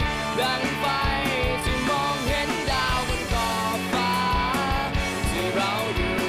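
A rock band's song: electric guitar over a steady drum beat, with a melody line that slides and bends in pitch.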